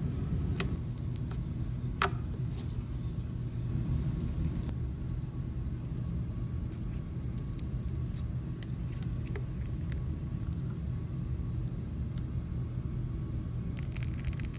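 Steady low background rumble with a few scattered faint clicks, one sharper click about two seconds in, and a short run of clicks near the end.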